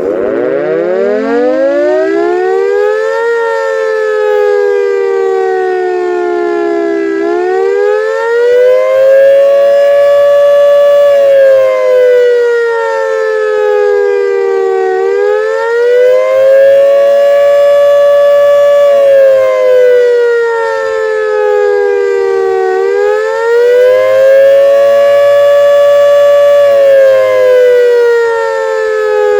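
CLM 5261 outdoor warning siren on test, sounding two close tones at once. It winds up from a stop over the first three seconds, then wails, its pitch rising and falling slowly about every eight seconds.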